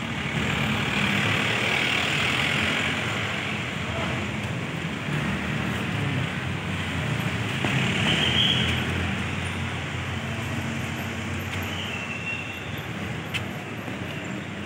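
Steady road traffic noise: the mixed rush of passing vehicles in a town street, swelling a little now and then.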